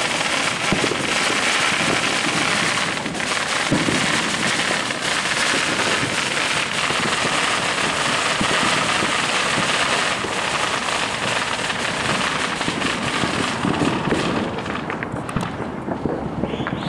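Fireworks and firecrackers crackling and popping densely and without a break, thinning out to scattered pops near the end.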